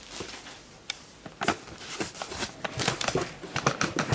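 Crumpled packing paper and a cardboard box being handled: irregular rustles, crinkles and light taps, sparse for the first second or so, then more frequent.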